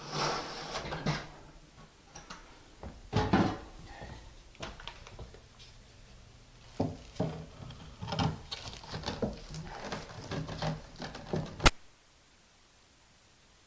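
Thinset mortar being scraped and spread with a hand tool: irregular scrapes and knocks of steel on mortar and tile, ending in one sharp click near the end, after which only faint hiss remains.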